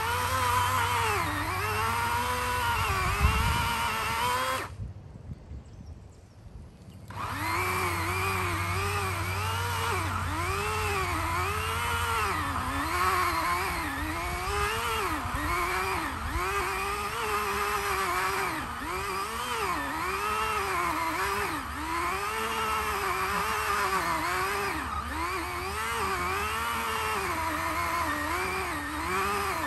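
Battery-powered 80-volt chainsaw cutting into a rotten log, its motor whine rising and falling about once a second as the chain bites and frees in the wood. It cuts out for about two seconds some five seconds in, then carries on.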